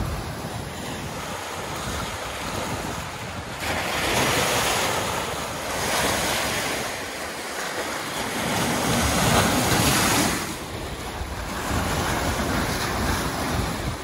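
Lake Michigan waves breaking and washing over the boulders of a rock shoreline, swelling in surges, loudest about four seconds in and again around nine to ten seconds in. Wind buffets the microphone.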